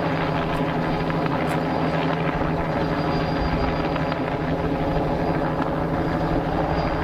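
Helicopter flying overhead: a steady drone of rotor and turbine engine with a faint high whine.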